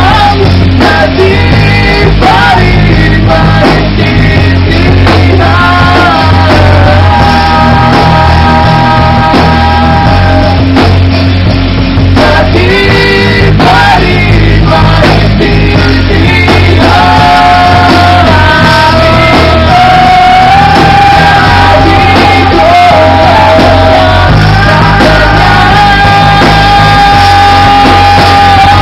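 Live rock band playing loudly: a male singer sings over electric guitars and drums, holding a long note through the second half.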